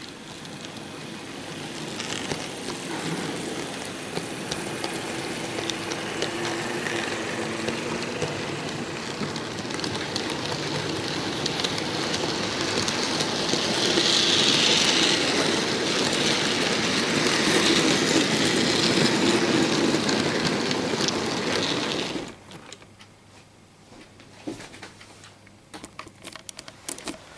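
HO-scale model train running past close by: the locomotive motors running and the wagon wheels rolling on the track, with many fine clicks, growing louder to a peak, then cutting off suddenly about 22 seconds in, leaving only a few faint clicks.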